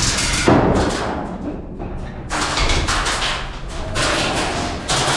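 A heavy thump about half a second in, followed by stretches of scuffing and clattering noise that start and stop.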